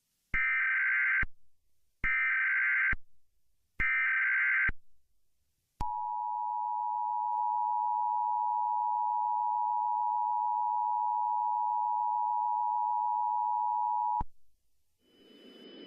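Emergency Alert System alert tones. First come three short bursts of buzzing SAME header data, each just under a second. Then the two-tone attention signal is held steady for about eight seconds and cuts off suddenly. The sequence announces an incoming tornado warning.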